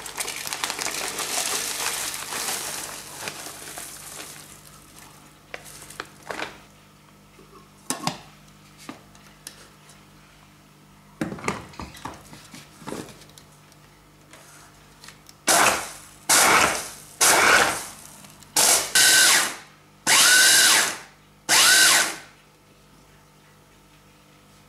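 Dried chillies rustle as they are poured from a plastic bag into a plastic chopper bowl, then a few knocks as the motor head is fitted. Near the end, an electric mini chopper is pulsed about seven times in short bursts, each rising in pitch as the motor spins up, coarsely grinding the dried bird's-eye chillies.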